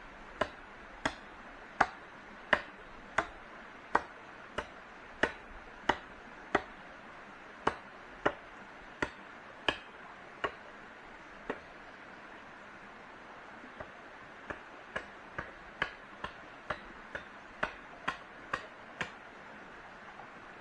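Repeated sharp strikes of a hand tool on wood, each with a brief ring, about one or two a second. They pause for a couple of seconds about halfway, then resume at a quicker pace.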